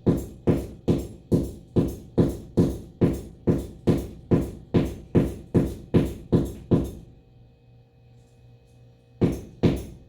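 Hammer blows striking a hard wall, evenly paced at about two a second; they stop about seven seconds in, then two more blows come near the end.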